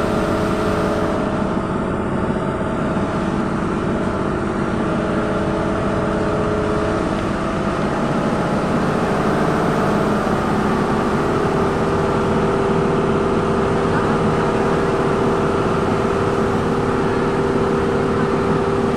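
A vehicle's engine running steadily while travelling, with its note shifting a little about halfway through.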